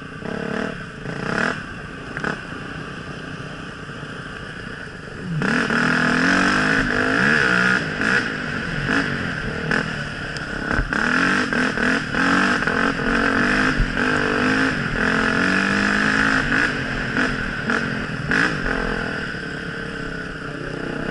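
Dirt bike engine heard from on the bike, revving up and down as it rides through mud, with scattered knocks and clatter over the rough trail. The engine gets much louder about five seconds in and keeps rising and falling in pitch.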